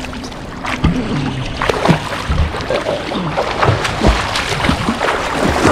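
Swimming-pool water splashing and sloshing right at the microphone as swimmers move through the water, with many irregular short splashes.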